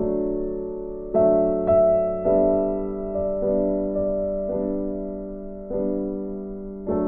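Background piano music: slow, soft chords, a new one struck about every second and left to fade.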